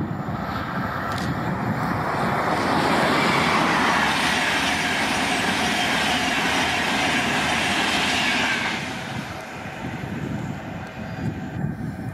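Locomotive-hauled electric passenger train passing at speed: the rush of wheels on rail and air builds as it approaches, is loudest while the coaches go by, then drops away sharply about nine seconds in.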